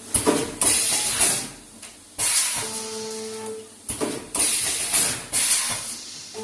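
Cough syrup packing machine running through its cycle: pneumatic valves and cylinders let out sharp blasts of hissing air in clusters, and a steady hum sounds for about a second between them. The pattern repeats roughly every four seconds.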